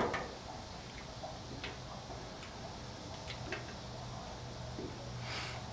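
Faint, scattered light ticks and clicks of small parts being handled at the RV-10 wing's rear spar, over a steady low hum, with a short rustle near the end.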